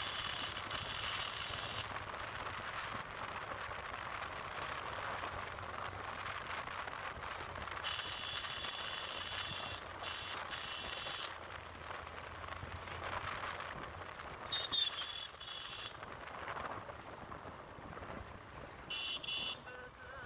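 Wind rushing over the microphone and a motorcycle running at road speed. A high buzzing tone cuts in and out several times, each time for a second or two.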